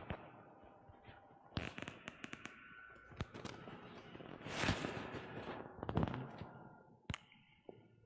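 Scattered knocks, clicks and rustling of people moving about in a church as the Mass ends, with a louder rustle about four and a half seconds in and a couple of thumps after it.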